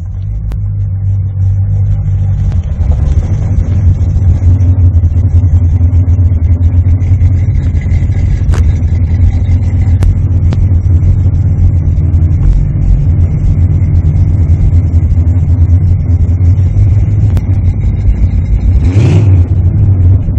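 A 1980 Chevrolet Corvette C3's V8 engine running with a deep, steady rumble, with a brief louder swell near the end.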